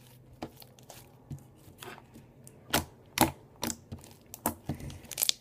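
Homemade slime being kneaded by hand and pulled off the sides of a bowl, giving scattered small sticky clicks and pops, the two loudest about three seconds in.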